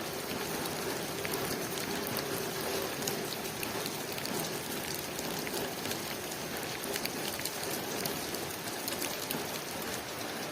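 Steady rain falling on a window pane: an even hiss dotted with many small drop taps.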